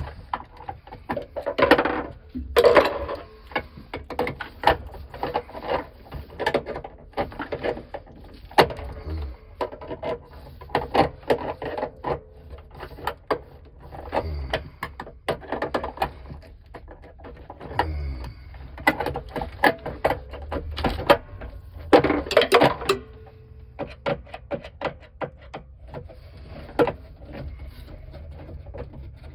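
Irregular clinks, clicks and knocks of small metal hardware and hand tools being handled and rummaged through, with denser bursts of clatter every few seconds.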